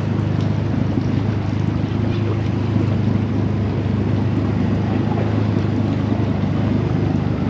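Outboard motor of an inflatable dinghy running at a steady pace, a low even drone, with wind on the microphone.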